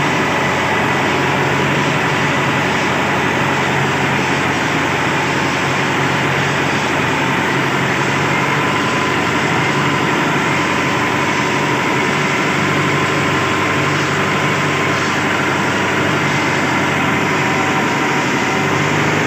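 Sawmill machinery running steadily: a loud, unbroken mechanical hum with no pauses or changes in pitch.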